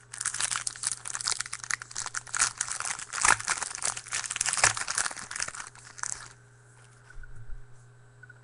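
A foil trading-card pack wrapper being torn open and crinkled by hand. The dense crinkling runs for about six seconds, then stops.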